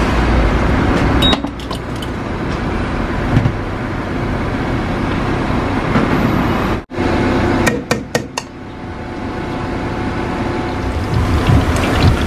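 Steady outdoor noise with wind rumbling on the microphone at first, broken by a sudden cut about seven seconds in, followed by a few sharp metal clicks.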